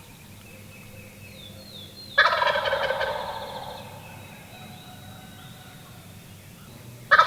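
A wild turkey gobbler gobbling from the roost: one loud rattling gobble about two seconds in that fades over a second or two, and another starting right at the end. Faint songbird chirps sound in between.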